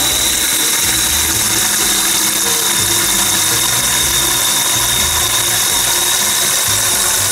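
Kitchen faucet running full through a spray aerator into a plastic pitcher in a stainless steel sink: a steady hiss of water with a thin high whistle.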